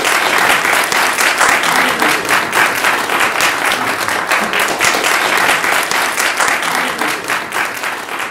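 Audience applauding, a dense continuous clapping that eases slightly near the end.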